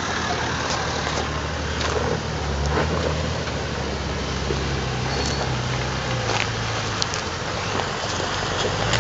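Off-road 4WD ute's engine running steadily at low revs as it crawls over a rocky track, with tyre noise and a few scattered sharp clicks of stones under the wheels.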